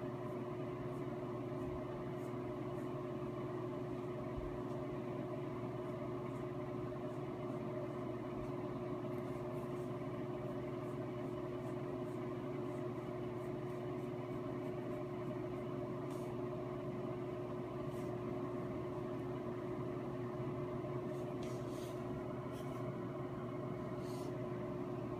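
A steady mechanical hum with a constant low tone, and a few faint ticks near the end.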